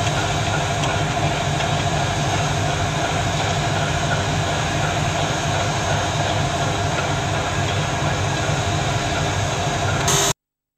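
Steady rumble and hiss of locomotives at a station, a steam locomotive standing among diesel locomotives. The sound cuts off suddenly near the end.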